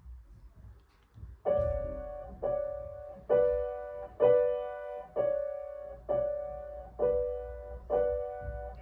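Grand piano playing a slow introduction of repeated chords, about one a second, each struck and left to fade. The chords begin about a second and a half in, after a quiet pause.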